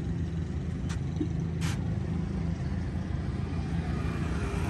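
Tractor diesel engine idling with a steady low rumble, with two short hissing sounds about one and two seconds in.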